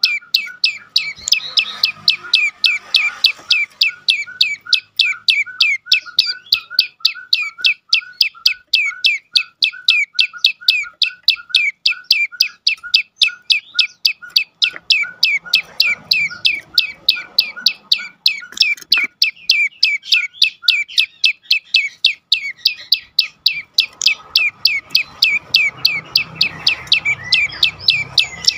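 Prenjak lumut (a small Indonesian prinia-type songbird) giving its rapid, continuous 'dor' call: a steady rattle of short, sharp, downward-sweeping chips at about four a second. A lower, softer note is interleaved with them for most of the time and drops out near the end.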